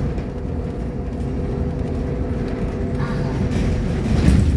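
Irisbus Agora L articulated city bus heard from on board, its diesel engine and driveline running with a steady rumble and a faint steady whine. It grows louder near the end, with some rattling and hiss added.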